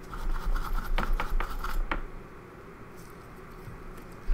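Hand tools being handled on a microsoldering workbench: a cluster of scratchy clicks and scrapes with a few sharp ticks for about two seconds, then a single low thump against the bench at the end.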